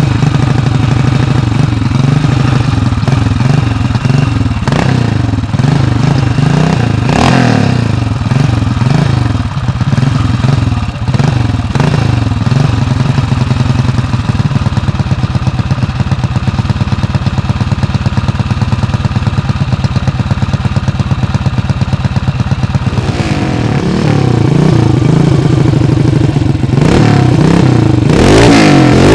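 1974 CCM 580's big single-cylinder four-stroke engine, built on a BSA B50, running on a stand with a steady pulsing beat, its revs briefly flared a few times. Near the end it is revved up and down repeatedly, louder.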